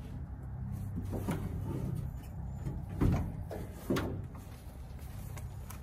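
Rubber hip waders being pulled out of a pickup's cab, rustling and squeaking against the seat and door, with two louder knocks about three and four seconds in, over a low steady hum.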